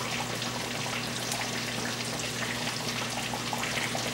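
Pot of water at a rolling boil, bubbling and crackling steadily, over a low steady hum.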